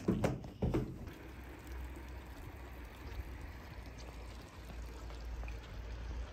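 Water from a public fountain's spout splashing steadily into its stone basin, after a few sharp knocks in the first second.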